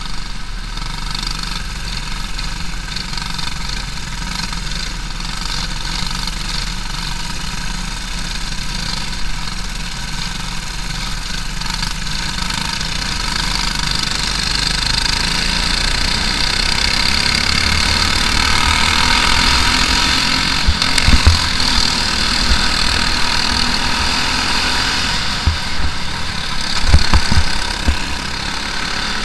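Briggs & Stratton LO206 single-cylinder four-stroke kart engine running at racing speed, heard onboard with other karts close by. It grows louder about halfway through, and several sharp low thumps come in the last several seconds.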